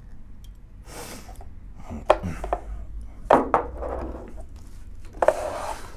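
Handling sounds as a dash display unit is turned over and set down on a table: a few sharp knocks, with bursts of rustling, the longest near the end.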